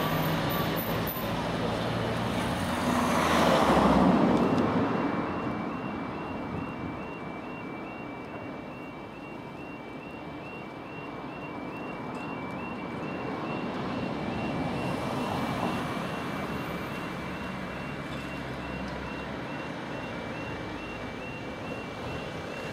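A road vehicle passes close by about three to four seconds in. Then a level crossing's audible warning alarm starts up: an electronic two-tone yelp repeating rapidly and steadily, sounding as the red lights flash and the barriers lower to stop road traffic for an approaching train. Light road traffic runs underneath.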